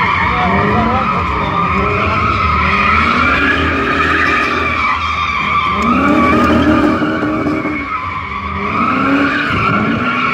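BMW sedan drifting: its tyres squeal without a break while the engine revs climb and drop again and again as the throttle is worked.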